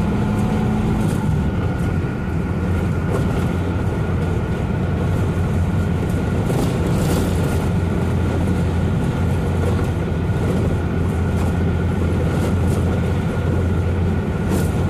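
Truck engine running at a steady drone while driving, with a few short rattles and clatters as the truck jolts along.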